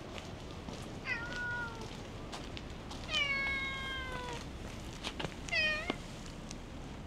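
Cat meowing three times: a short call, then a long drawn-out one that sinks slightly in pitch, then a brief one that turns upward at its end.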